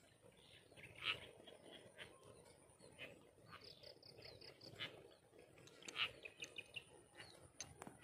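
Faint birdsong: scattered short chirps, with a quick run of about six high, evenly spaced notes near the middle and another short trill about two-thirds through. A thin, steady, high insect drone runs beneath it.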